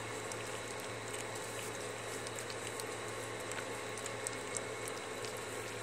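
Terrier puppies eating wet mush from a steel bowl: soft, scattered wet smacking and lapping clicks over a steady low hum.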